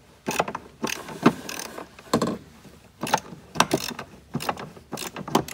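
Irregular metal clanks, knocks and scraping as a replacement Peterbilt windshield wiper motor is worked into place against its mounting plate and the wiper linkage with a long screwdriver, some knocks coming in quick little clusters.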